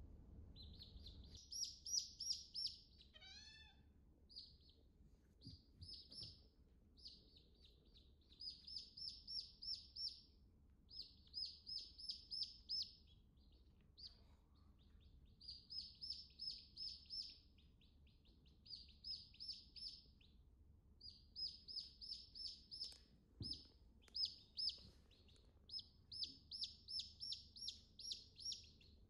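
Chicks peeping: quick runs of high-pitched peeps, several a second, in bouts of about a second separated by short pauses, with one falling trill of notes near the start.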